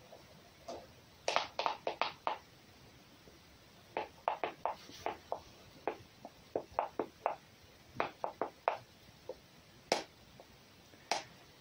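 Light crunching clicks in quick runs of four or five, repeating every second or two: movement in crunchy snow close by.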